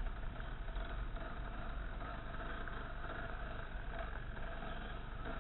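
Off-road motorcycle engine running steadily while riding a forest dirt trail, with the general noise of the ride mixed in.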